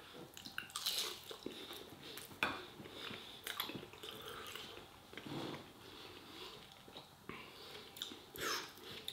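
Eating sounds: a tandoori chicken tender being chewed, with scattered light clicks and taps as fingers pick food off a plate.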